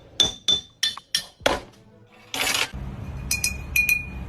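Sharp ringing clinks of hard objects, about five in the first second and a half. A short hiss follows about two seconds in, then a low steady rumble with a few more clinks over it.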